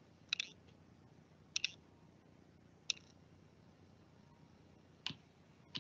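Four short, sharp clicks, spaced one to two seconds apart, some of them doubled, over a quiet background.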